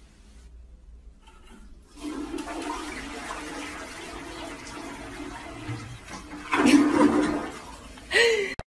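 Water rushing, as from a flush or a running tap: it sets in about two seconds in, is loudest about seven seconds in, and cuts off suddenly near the end.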